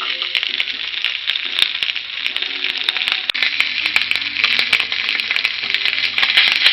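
Sea bass fillets frying skin side down in hot mustard oil on a griddle pan: a steady sizzle with many small pops and crackles.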